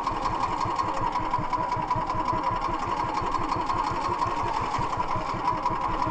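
Small engine of a motorized outrigger fishing boat running steadily, with a fast, even pulse.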